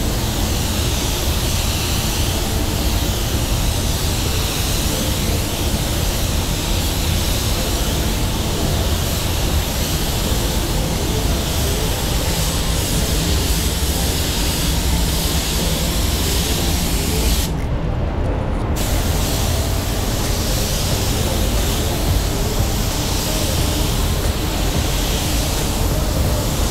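WS-400 Series 2 paint spray gun hissing steadily as it sprays, with the hiss cutting out for about a second midway and then resuming. A steady low rumble runs underneath.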